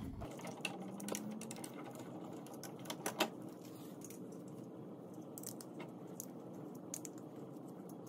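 Faint scattered clicks and light metallic rattles from a screwdriver and a wall light switch being handled while the wires are taken off its terminal screws, with a couple of slightly louder clicks about three seconds in.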